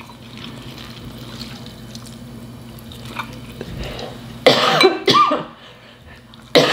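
A person coughing in short, sharp bursts: twice about four and a half seconds in, then again near the end. Under it is a faint, steady low hum.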